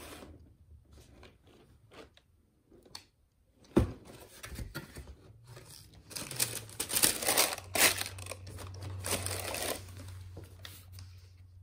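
A cardboard shoebox being opened, with one sharp knock about four seconds in, then tissue paper crinkling and rustling for several seconds as a sneaker is unwrapped and lifted out.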